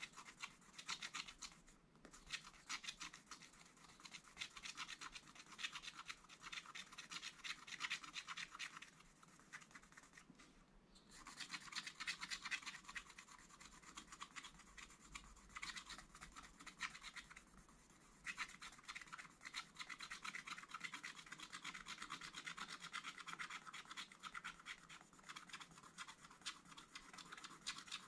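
Wooden stylus scraping the black coating off a glitter scratch-art card in rapid back-and-forth strokes, with a few short pauses.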